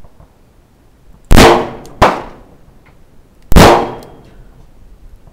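Three handgun shots, each a sharp crack with a short ringing tail. The first two come about two-thirds of a second apart, and the third follows about a second and a half later.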